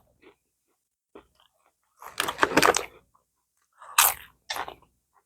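Potato chips being bitten and crunched while chewing. A dense run of crunches comes about two seconds in, and two more crunchy bites come near the end.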